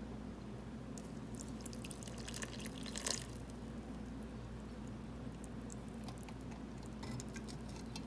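Water poured from a plastic measuring jug onto a compressed soil pellet in a bowl: small splashes and drips, loudest about three seconds in, with scattered faint ticks as the pellet soaks up the water.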